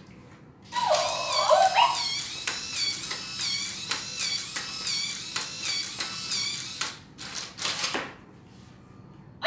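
Remote-control robot dog toy playing an electronic tune through its speaker: short repeating pitched figures over a steady clicking beat. Two short noisy bursts follow near the end.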